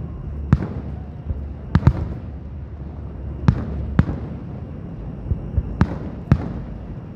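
Aerial fireworks shells bursting: a string of sharp bangs at uneven intervals, some in quick pairs, over a steady low background rumble.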